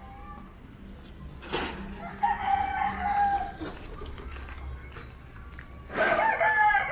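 A rooster crowing: one long crow about two seconds in and another near the end, over a low steady street hum.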